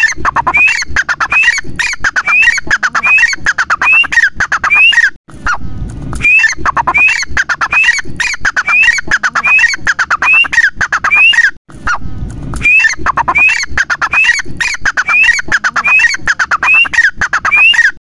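Grey francolin (teetar) giving its loud territorial call: a long series of harsh, rising notes repeated about twice a second, in three bouts broken by short pauses about five and eleven seconds in.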